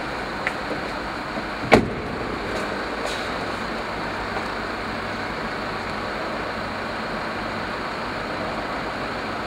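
A car door slammed shut once, a sharp bang about two seconds in, over a steady background hum.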